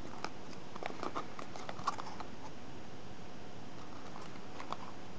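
Small cardboard toy box being handled and turned in the fingers: a cluster of light taps and clicks in the first two seconds and a couple more near the end, over steady hiss.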